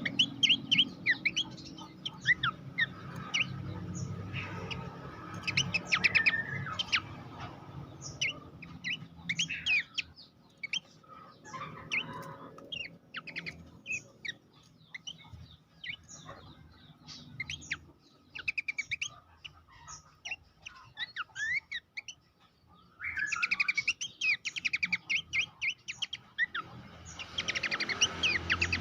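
Pelanduk semak (a babbler) singing: rapid runs of short, sharp chirping notes that slide in pitch. The notes come in dense bursts, thin out through the middle, and crowd together again near the end.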